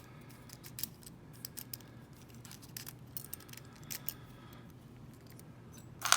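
Small metallic clicks and ticks of a lock and its key being handled, scattered irregularly, with one sharper click near the end.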